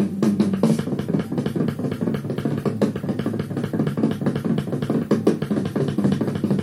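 Jazz playing from a vinyl LP on a turntable, heard through room speakers: a busy drum kit with a steady low bass line.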